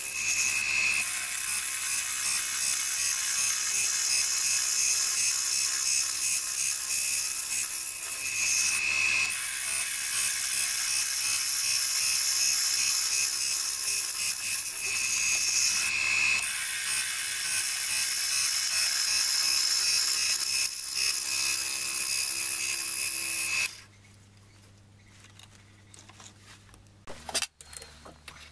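A metalworking lathe turns a wooden blank while a cutting tool shaves it, a steady high hiss over the machine's low hum. The cutting sound stops abruptly about 24 seconds in, leaving a faint hum and a few clicks.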